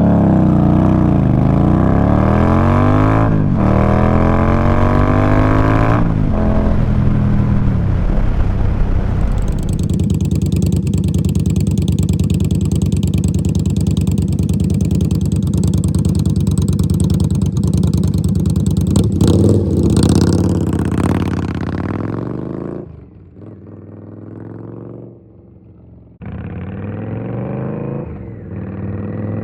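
Indian Scout Rogue's V-twin with GP Shorty exhausts accelerating hard, its pitch climbing and dropping at two gear shifts in the first six seconds. It then holds a steady high cruise with wind rush. About twenty seconds in the rider backs off and the engine falls to a low burble, then pulls away again more gently near the end.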